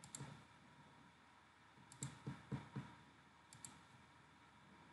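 Faint computer mouse clicks: three quick pairs of clicks, one at the start, one about two seconds in and one about three and a half seconds in. Softer low taps fall between the second and third pairs.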